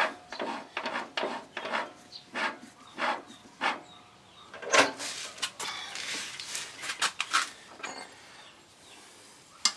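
Irregular clicks, knocks and scraping from hand work on a walk-behind tractor's half-axle assembly, as metal parts are handled and fitted.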